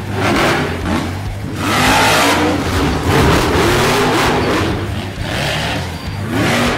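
Electric Losi LMT RC monster truck's motor and drivetrain whining, rising and falling in pitch with each burst of throttle, with hiss from the tyres spinning on gravel.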